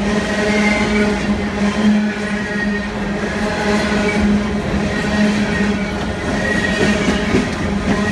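Empty coal cars of a freight train rolling past: a steady rumble of wheels on the rails with a steady low hum.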